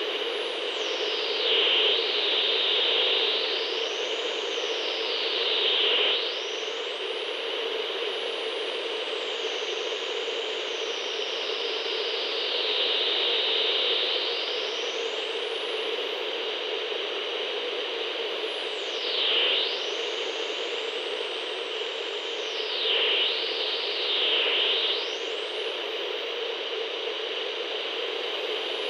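CB radio static: a steady hiss with whistling tones that glide up and down in pitch over and over, as when tuning across the band, swelling louder each time a whistle dips low.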